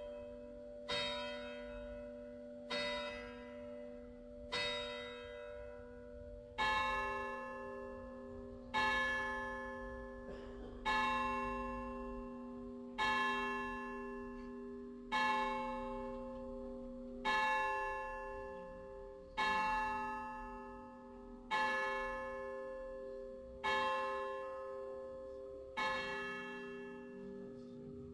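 Church tower bells swinging in a full peal, a stroke about every two seconds, each one ringing on and fading before the next. A second, differently pitched bell joins about seven seconds in, thickening the chord.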